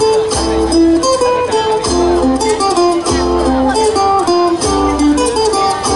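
Recorded music played over a stage PA: a guitar melody over bass and a steady beat.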